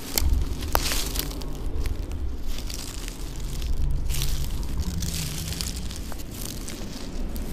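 Footsteps crunching through dry leaves and twigs, with irregular crackles and snaps over a low rumble.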